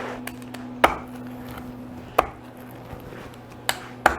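A blade cutting through a crispy-crusted pizza, four sharp knocks at uneven intervals of roughly a second and a half.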